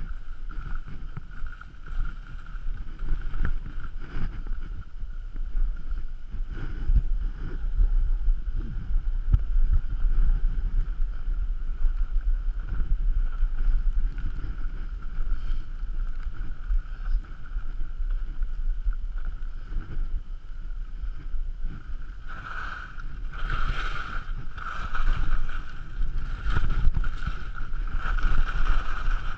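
Wind rushing over a GoPro's microphone as a skier glides downhill, with skis hissing on the snow. The ski scraping grows louder and harsher over the last several seconds.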